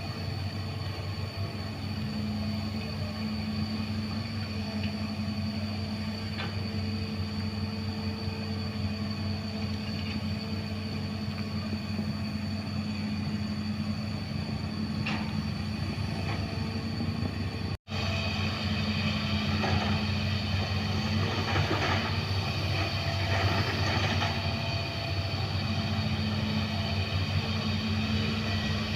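Hydraulic excavator's diesel engine running steadily while working, with a steady low hum and a thin high whine. The sound cuts out for an instant a little past halfway, then the engine runs on, with rougher noise swelling for a few seconds.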